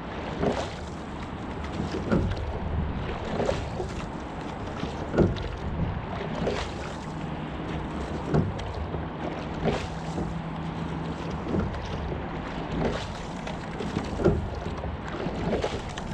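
Single racing scull being rowed at a steady rate: knocks from the oars and their gates come twice each stroke, the stronger one about every three seconds, over water running along the hull and wind on the microphone.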